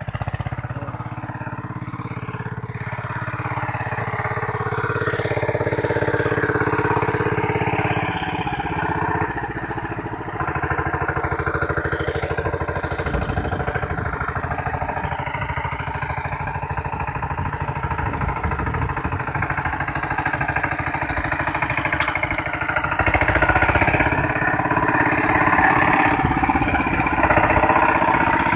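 KAMCO walk-behind power tiller's single-cylinder diesel engine running steadily while its rotary tiller churns the soil, louder in the last few seconds as it comes close.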